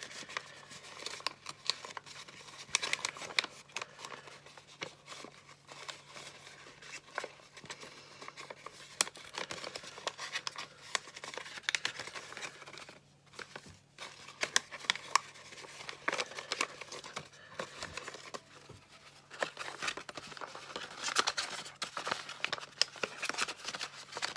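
Stiff paper of a folded origami lantern crinkling and rustling in the hands as it is opened out and shaped, with many small clicks and scrapes from the paper and a slim tool pushed inside it. A faint steady low hum sits underneath.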